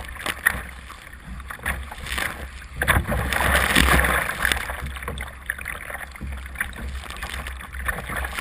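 Kayak paddle blades dipping and splashing through choppy water, stroke after stroke, with wind buffeting the microphone as a low rumble. A louder rush of water about three seconds in lasts a second or two.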